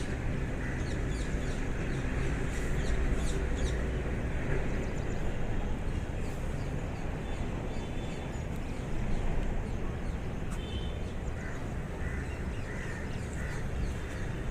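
Birds chirping in the background, with short high chirps clustered in the first few seconds and a few fainter calls later, over a steady low rumble.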